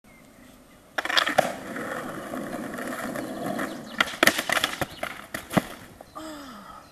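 Skateboard put down about a second in and rolling over rough asphalt, then the tail pop of an ollie about four seconds in, followed by several clacks of the board and a fall onto the asphalt. A short falling voice comes near the end.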